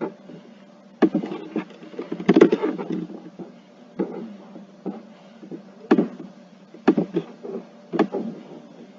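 Sharp clicks and taps from a computer mouse and keyboard, one every second or so, with a quick run of them about two to three seconds in.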